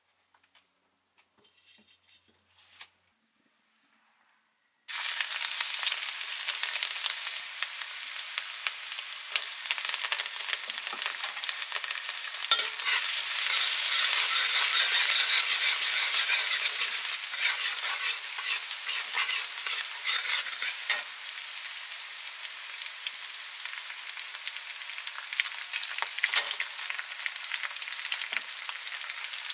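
Shredded vegetables frying in hot oil in a metal wok, stirred with a metal spatula. A loud sizzle starts suddenly about five seconds in and carries on, with the spatula scraping against the pan.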